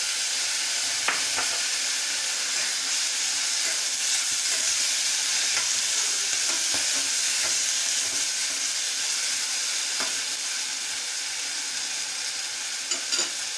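Chopped tomatoes and green peas sizzling in hot oil in a steel kadhai, with a steady frying hiss. A spatula stirs the mix, scraping and tapping the pan now and then.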